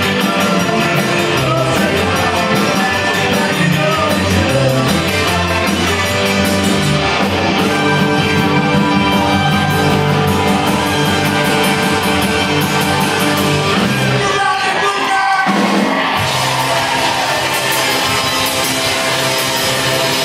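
Live Tex-Mex rock band playing with singing: electric guitars, button accordion, trumpet, keyboard and drum kit. About two-thirds of the way through, the bass and drums drop out for a second or so, then the full band comes back in.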